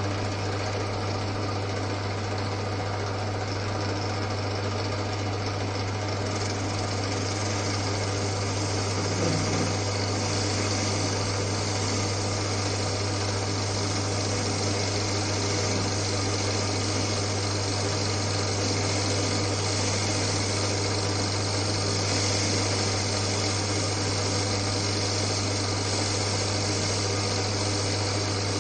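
Old Winfield metal lathe running under its electric motor, with a steady low hum, while a dull turning tool takes a roughing cut of a millimetre or two. A steady hiss of cutting rises a few seconds in, and the motor holds its speed without bogging down.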